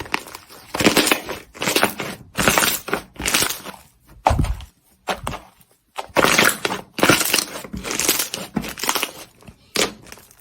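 Slime being squeezed and pressed by hand, giving irregular crunchy, crackling bursts with short pauses between them.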